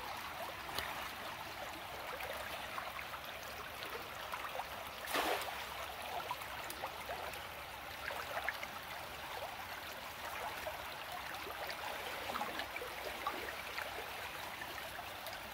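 Shallow river water running and trickling over stones and through branches, a steady flowing sound. One short louder sound stands out about five seconds in.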